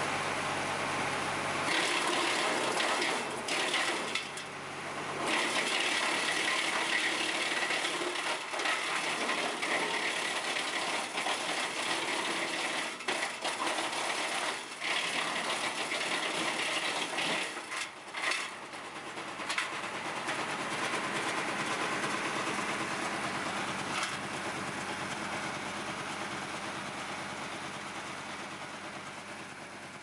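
Tractor-driven BX42S PTO wood chipper running and chipping branches, a loud, continuous mechanical clatter that swells and dips as branches go through the cutter. The sound fades out toward the end.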